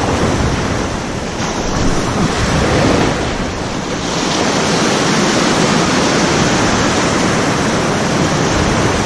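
Small sea waves breaking and washing through shallow surf close to the microphone, a steady rush of foaming water.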